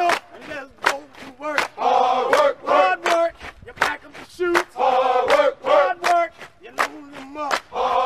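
A group of male voices chanting a sung work-song refrain in phrases, over a steady beat of sharp percussive hits.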